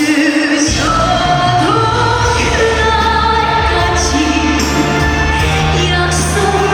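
Live music: a female voice singing held, wavering notes over band accompaniment, the bass dropping out briefly at the start and then coming back in.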